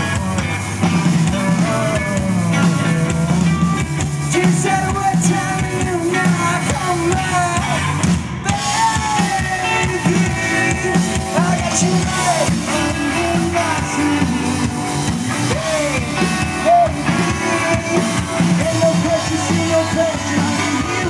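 Live rock band playing: two distorted electric guitars, electric bass and a drum kit.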